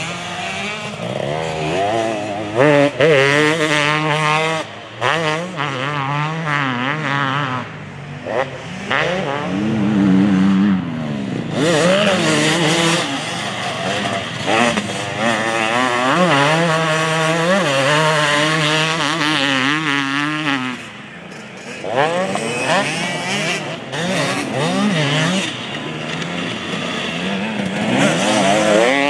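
2023 KTM 250 SX's single-cylinder two-stroke engine revving hard, its pitch rising and falling again and again under the throttle. It eases off briefly about 21 seconds in, then picks up again.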